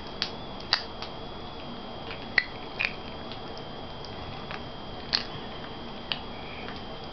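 Pop Rocks candy crackling in a child's mouth: about a dozen sharp, irregularly spaced pops over a steady hiss and faint high whine.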